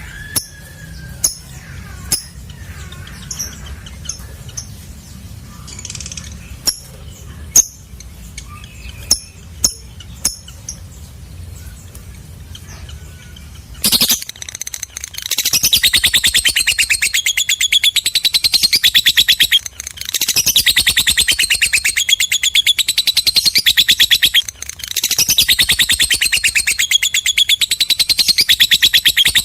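Lovebird giving scattered short chirps, then about halfway through breaking into a loud, rapid, continuous chattering trill. This is the long 'ngekek' song, which pauses briefly twice.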